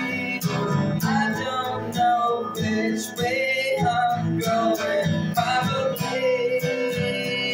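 Music: a strummed guitar playing a steady rhythm, with a singing voice carrying a melody over it.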